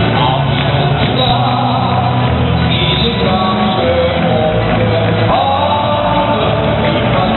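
A song played through a football stadium's sound system with a large crowd of supporters singing along.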